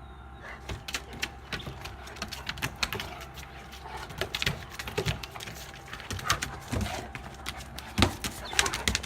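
Two Cane Corsos wrestling: a rapid, irregular clatter of paws and claws with knocks and bumps, a few short dog vocal sounds around the middle, and a heavy thump about eight seconds in.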